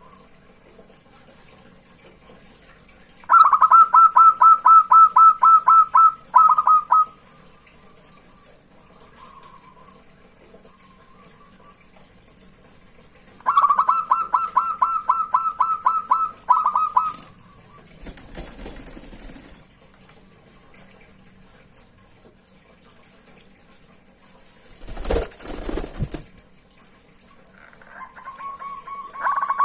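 Zebra dove (perkutut) cooing: two bouts of quick, evenly spaced coo notes about ten seconds apart, each ending with a couple of notes after a short break. Near the end there is a brief rustling thump.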